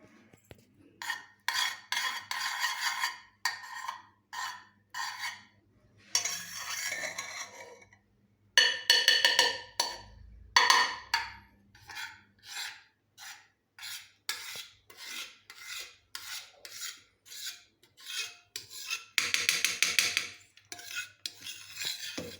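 Butter being spread around the inside of a metal pressure cooker: a long series of irregular rubbing and scraping strokes against the metal sides, a few of them longer and louder.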